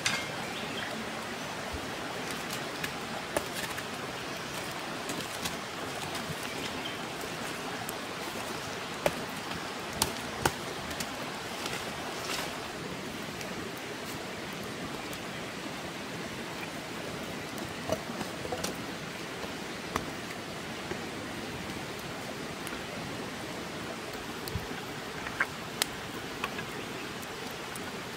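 Steady rushing background noise, like running water, with scattered sharp cracks and snaps from sticks being broken and a burning wood fire.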